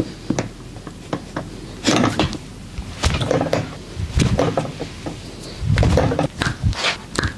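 Joints cracking and popping under manual manipulation: a run of sharp irregular cracks and clicks, mixed with dull thumps and rustling as the body is handled.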